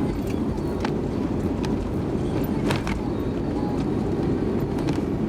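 A car on the move: steady low road and engine rumble, with a few faint clicks over it.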